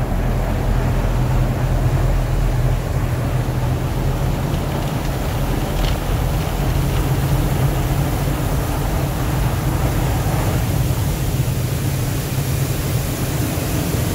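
Soft-cloth tunnel car wash heard from inside a cargo van's cabin: water spray and foam beating on the glass while cloth brushes scrub across the windshield, over a steady low hum of machinery. The spray hiss grows stronger in the second half.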